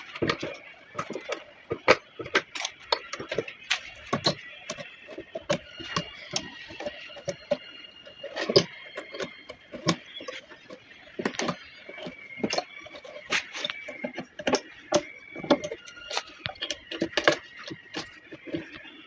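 Irregular sharp knocks and clicks, several a second, from hands-on upholstery work on a sofa.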